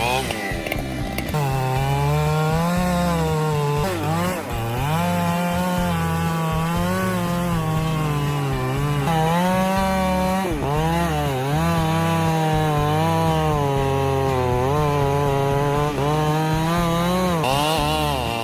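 Chainsaw engine running at high revs while cutting wood. Its pitch sags and recovers as the chain bites under load, with sharper dips about a second in, at about four seconds and at about ten and a half seconds.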